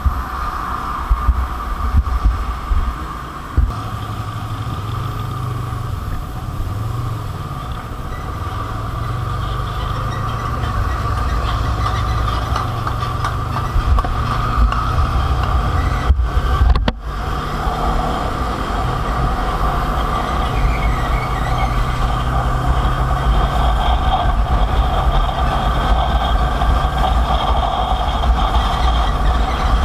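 Motorcycle engine and road noise while riding: a steady low drone, with a brief break in the sound just past halfway.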